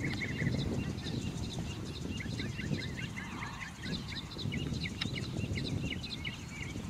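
Birds chirping in many short, quick notes, with a steady low rumble of outdoor background noise beneath.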